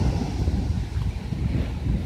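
Waves breaking and washing up a pebble beach in a rough sea, with heavy wind buffeting on the microphone as the loudest part.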